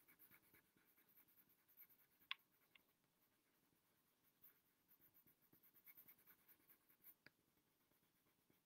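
Faint scratching of a coloured pencil shading on paper in quick short strokes. There is a sharper tick about two seconds in and another near the end.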